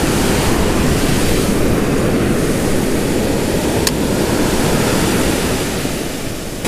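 Ocean surf washing up the beach close by: a steady rushing wash with a heavy low rumble, with one short click about four seconds in.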